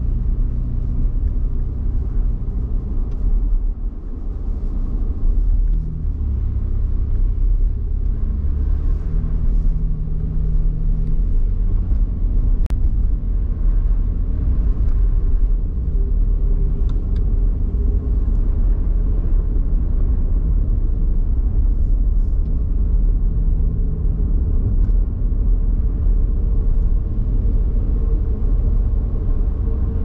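Car driving: a steady low rumble of engine and tyres, with a hum that shifts in pitch now and then. There is a single sharp click about twelve and a half seconds in.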